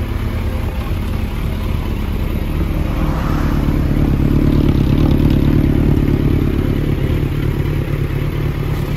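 Suzuki GSX1400's inline-four engine running at idle through a KLAZE aftermarket full exhaust system, with a steady low pulse. It swells louder for a couple of seconds about midway, then settles again.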